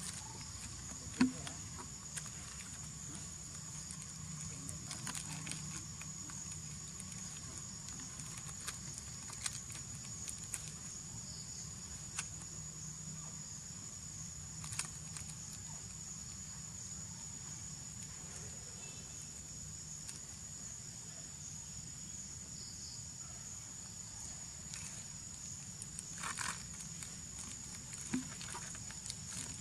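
Steady high-pitched drone of insects, with scattered short crinkles and clicks of a plastic snack wrapper being handled and torn by a young macaque.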